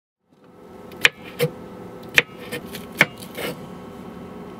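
Kitchen knife chopping vegetables on a wooden cutting board: sharp, irregular knocks about once a second over a steady low hum.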